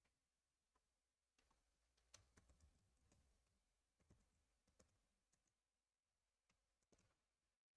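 Near silence with faint, scattered clicks of a computer keyboard and mouse, irregular and spread over several seconds.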